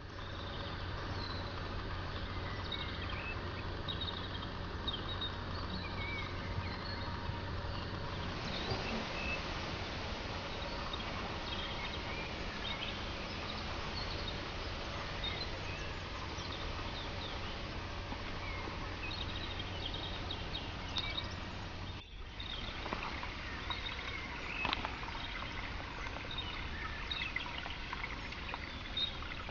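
Woodland ambience: scattered bird chirps over a steady background hiss. The background changes abruptly twice.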